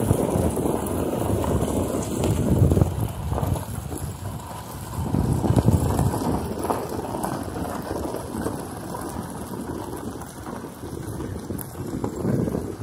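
Low rumbling wind and travel noise buffeting the microphone on a slowly moving vehicle, rising and falling in gusts.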